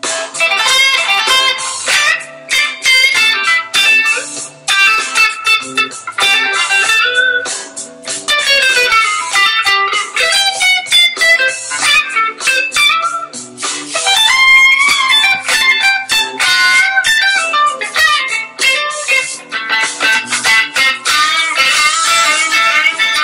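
Stratocaster electric guitar played lead: quick runs of single notes, with string bends about fourteen seconds in.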